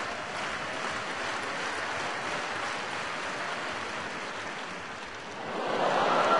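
Stadium tennis crowd noise while a line-call challenge is reviewed, swelling sharply into loud cheering and applause about five and a half seconds in as the ball is shown to be in.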